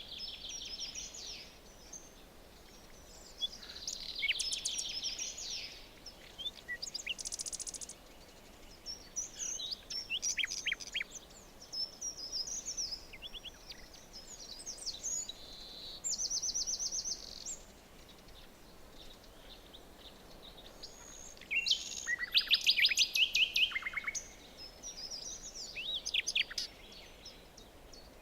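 Several songbirds singing and calling in a forest: overlapping trills, whistles and fast repeated chirps, the loudest burst of song near the end, over a faint steady background hiss.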